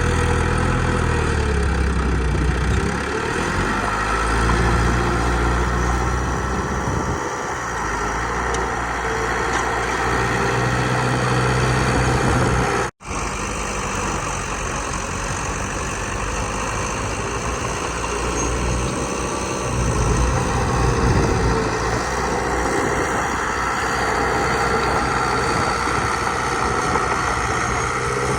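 Heavy diesel engine of a bulldozer running steadily, its low rumble rising and easing with the load. The sound cuts out for an instant about 13 seconds in.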